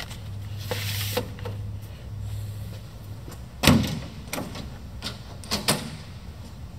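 Sheet-metal electrical cabinet door on a Brown & Sharpe surface grinder swung shut with one loud thump about three and a half seconds in, followed by four sharp clicks as its latch handle is turned. A few soft knocks come in the first second or so as something is set inside the cabinet.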